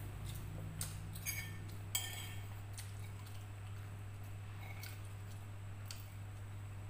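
A metal spoon clinking and scraping on a ceramic plate, with three sharp clinks in the first two seconds and lighter taps after, over a steady low hum.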